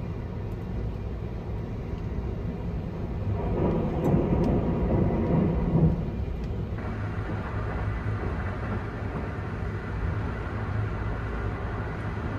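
Sunrise Express 285 series electric sleeper train running, a steady low rumble of wheels on rail heard from inside the compartment. It swells louder for a couple of seconds about four seconds in.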